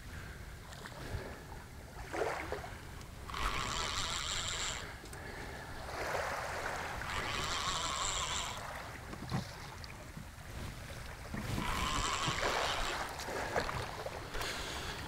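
Okuma Flite spinning surf reel being cranked in three bursts of a second or so each, winding in a hooked fish between pumps of the rod. A low wash of wind and shallow water runs underneath.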